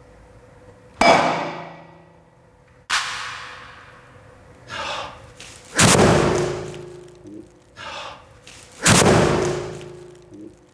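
Foley recreation of an anime impact sound effect, made by striking everyday objects: a series of six sharp hits, each ringing out for a second or so. The loudest hits come about a second in, about six seconds in and near nine seconds, with a softer hit leading into each of the last two.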